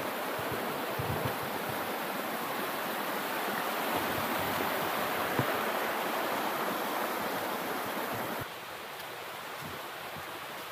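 Steady rushing of a small river's flowing water. About eight seconds in it turns noticeably quieter.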